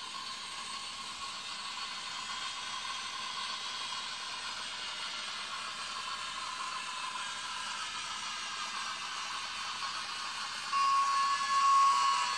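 Toy train running around a track on a Christmas tree: a steady whirring hiss from its small motor and wheels. It gets louder near the end as the train comes close, with a steady high tone for about a second.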